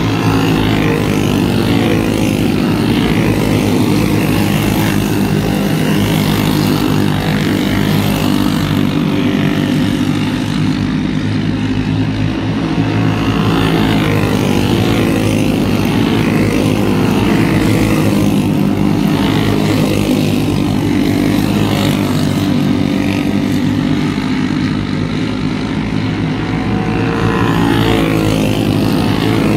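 Several racing go-kart engines running together, their pitch rising and falling as the karts pass and accelerate through the turn.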